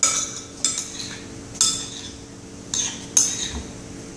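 A metal utensil clinking against a glass bowl while stirring salsa, about five sharp, ringing clinks at uneven intervals.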